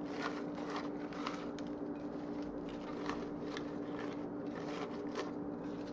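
Fresh spinach leaves rustling and crackling as handfuls are dropped and pressed down into a Ninja blender pitcher, many small crisp clicks in quick succession. A steady low hum runs underneath.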